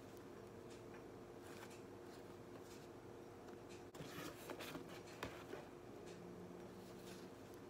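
Faint rustling and crackling of a soft-crusted loaf of bread being handled, slices pulled apart and moved on a cutting board, loudest about four to five and a half seconds in with a light knock near the end of that stretch. A faint steady hum lies underneath.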